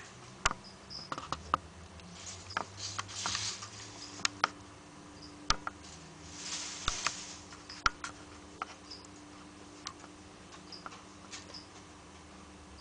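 Wood chips crackling and clicking as a ball python shifts its coils around a mouse, with two brief rustling spells, and faint short high chirps now and then.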